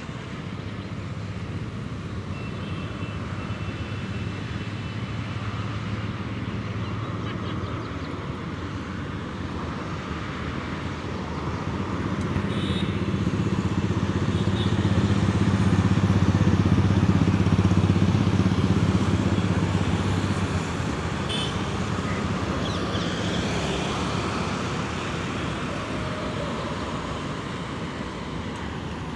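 Road traffic: a motor vehicle's engine hum that swells as it passes, loudest a little past halfway, then fades back to a steady traffic hum.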